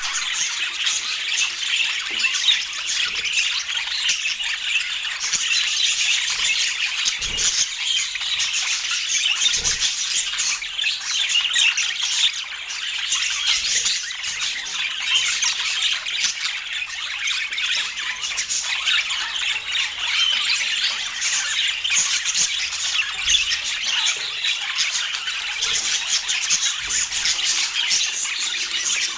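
Budgerigars chattering and chirping without a pause: a dense, high warble of squawks and chirps.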